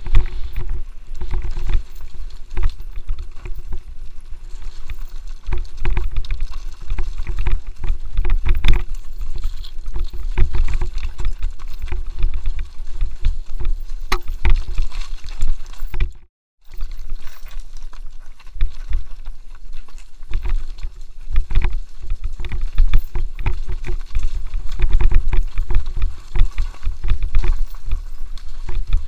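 Helmet-camera audio of a mountain bike descending a rocky trail: wind rumbling on the microphone, with constant rattles and knocks from the bike jolting over stones. The sound cuts out for a moment just past halfway.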